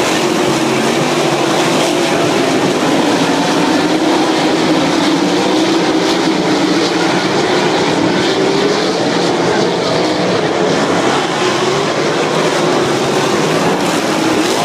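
Engines of a pack of winged dirt-track race cars racing around an oval, a loud steady drone whose pitch wavers up and down as the cars pass.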